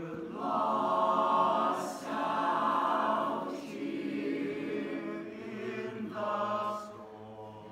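High school show choir of mixed voices singing held chords in harmony. The phrases are broken by short breaks, and the choir is louder in the first half and softer toward the end.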